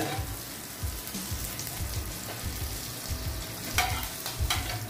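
Butter sizzling steadily as it melts in a hot nonstick frying pan, pushed around now and then by a spatula.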